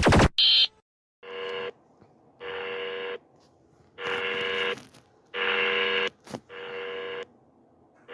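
Emergency alert tone sequence: a loud burst of noise cuts off, a short high beep follows, then five buzzy electronic tones of about half to three-quarters of a second each, separated by short silences.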